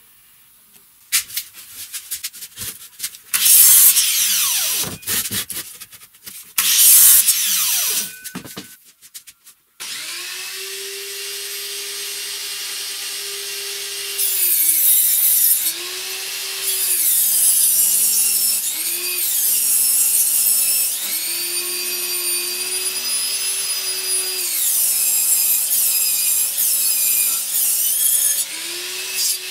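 Table saw cutting a wooden beam lengthwise along the fence: the motor runs steadily from about ten seconds in, its pitch dipping each time the blade bites into the wood. Before that, in the first nine seconds, come short loud bursts of sawing.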